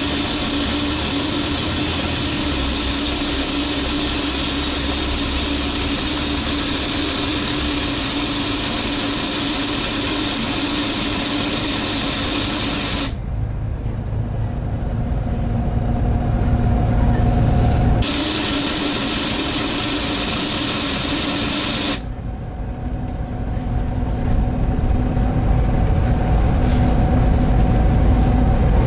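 Very loud suction noise on board a Volvo B7TL double-decker bus: a steady hiss that fills the saloon, typical of poor maintenance. It cuts out suddenly twice, about halfway through and again near the end, and each time the bus's diesel engine note rises until the hiss comes back.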